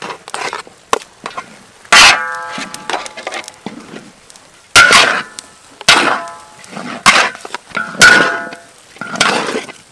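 Metal spatula scraping and knocking against a large wok while green coconut rice is stirred, about five sharp clangs at irregular spacing, each ringing briefly.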